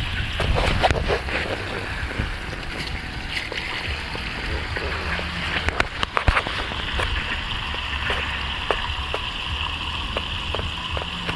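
Steady rushing noise like water, with scattered clicks and knocks throughout, busiest at the start and about six seconds in.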